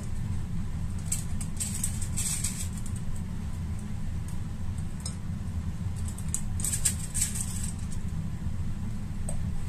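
Metal spring-release scoop clicking and scraping against a glass mixing bowl and foil cupcake liners as muffin batter is scooped and released, in short bursts a few times, over a steady low hum.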